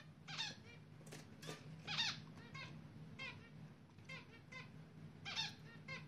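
Zebra finches at the nest giving short, squeaky calls, roughly one or two a second, some louder than others. A faint steady low hum runs underneath.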